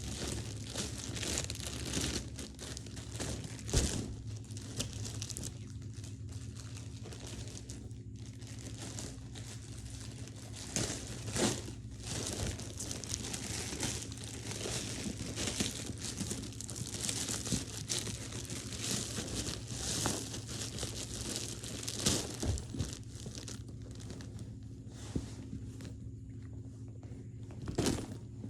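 Packaging being crinkled and torn open by hand, a continuous crackling rustle with a few sharper rips, over a steady low hum.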